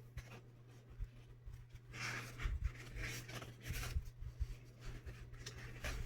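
Paper rustling as a manga book is handled and leafed through, in bursts from about two to four seconds in and again near the end, over a steady low hum.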